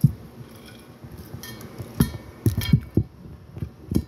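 Close-up eating sounds: a person chewing and smacking on a mouthful of fried rice right at the phone's microphone, in irregular bites, with a few short ringing clinks.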